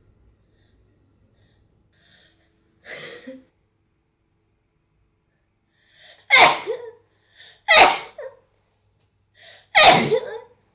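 A person sneezing over and over: a softer sneeze about three seconds in, then three loud sneezes a second or two apart, each coming right after a quick, sharp intake of breath.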